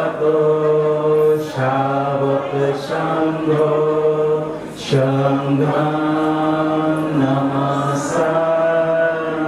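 Voices chanting a Buddhist devotional chant in unison, in long held notes with short breaks between phrases.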